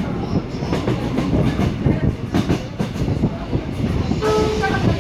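V-train sightseeing train running along the track, with wheels clattering over the rails. A short steady tone sounds near the end.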